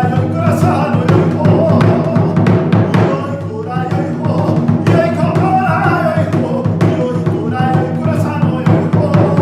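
Music: Japanese folk-style drumming, with repeated strikes over a steady low bass and a wavering melody line on top.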